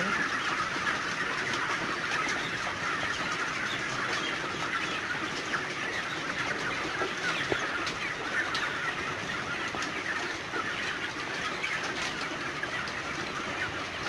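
A large flock of broiler breeder chickens clucking and calling together in a steady, dense din, with scattered sharp clicks. The feed-restricted birds are crowding the feeders at feeding time.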